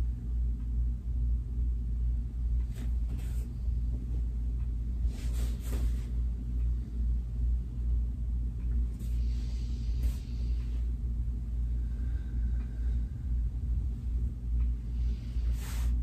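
Steady low rumble with a faint hum underneath, as from room machinery or the recording itself. A few short, soft hissing sounds come and go over it: near the start, around the middle and just before the end.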